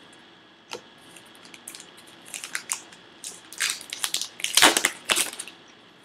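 A 2013 Topps Archives baseball card pack's wrapper being torn open and crinkled by hand. It crackles in irregular bursts that grow denser and louder, loudest at about four to five seconds in.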